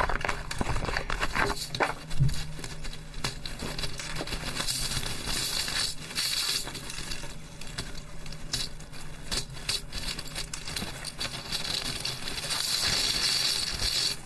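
Packing tape being pulled off a cardboard box, then a plastic bag crinkling and rustling as it is opened and plastic toy whistles are taken out, with scattered sharp clicks and knocks.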